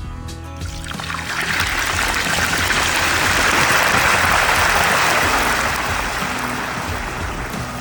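Background music under a hissing, splashing noise that swells from about a second in and fades away near the end.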